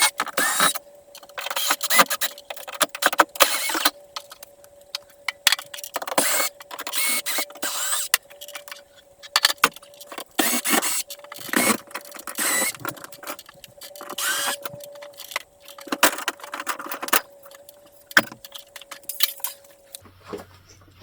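Drop-ceiling tiles and their metal grid being pulled down by hand: irregular rattling, scraping and clattering, with a faint steady hum underneath that stops near the end.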